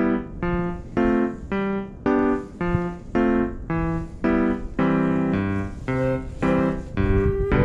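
Background music: piano-like keyboard chords struck in a steady rhythm, about two a second.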